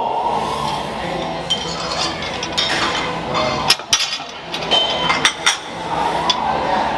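Metal weight plates clinking and clanking, a scatter of short sharp knocks over steady background hum.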